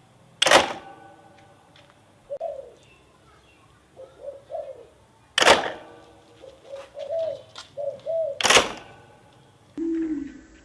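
Pigeons or doves cooing in short arched notes, in small groups, with three sharp knocks that ring briefly. Near the end, lower-pitched cooing.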